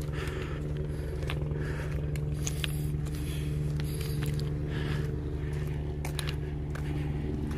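Footsteps crunching and scraping on a gritty trail, a scatter of short clicks, over a steady low hum.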